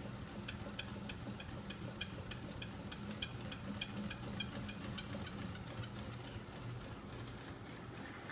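Homemade magnet-driven flywheel rig running on its small 24 V electric motor: a steady low motor hum with a regular light clicking about three times a second from the turning shaft mechanism, the clicks fading away about six seconds in.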